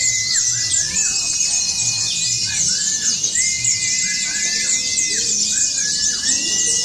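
Many white-eyes (pleci) singing at once: dense, high, fast twittering with longer clear whistled notes, several ending in a quick downward or upward hook, repeating over it.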